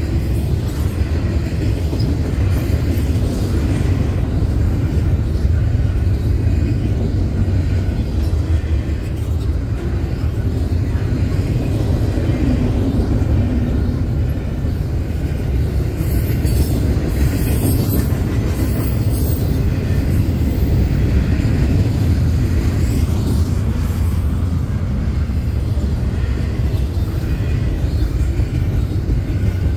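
Fast-moving double-stack container train passing close by: a steady, loud rumble of loaded well cars rolling over the rails.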